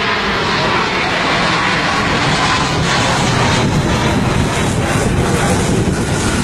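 Airplane engines running loud and steady as a fixed-wing aircraft goes by, the low rumble swelling somewhat in the middle.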